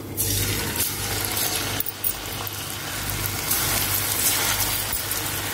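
Hot oil sizzling steadily as pieces of gram-flour-coated green cashew pakoda are dropped in by hand to deep-fry. The hiss sets in as the first pieces hit the oil.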